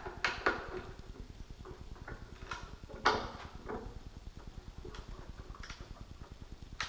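Scattered clicks and knocks of a steel mounting bracket being handled and adjusted on a loudspeaker cabinet, the loudest about three seconds in.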